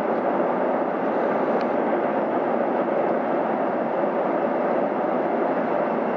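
Freight train rolling across a steel trestle bridge, heard from afar as a steady, even rumble with no distinct clicks or horn.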